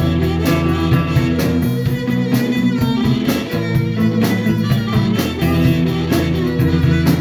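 Live blues band playing an instrumental passage: guitar over bass and drums, with a steady beat.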